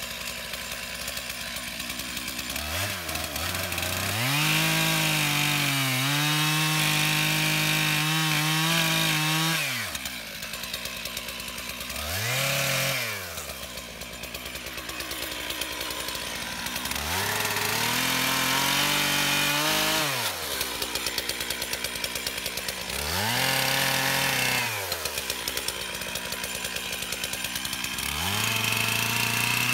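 Stihl 441 Magnum two-stroke chainsaw with a 36-inch bar cutting tree stumps. The engine revs up to full throttle and holds for a few seconds at a time, then drops back to idle in between, about five times.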